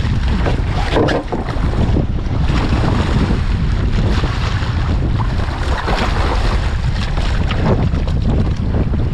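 Strong wind buffeting the microphone over splashing water as a hooked black marlin thrashes at the side of the boat, with several short splashes standing out.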